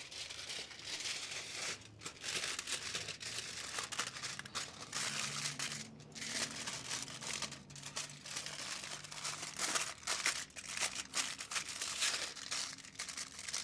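Aluminium foil crinkling and crackling as it is folded and pressed shut around a packet of fish fillets and vegetables, in handling bursts broken by a few short pauses.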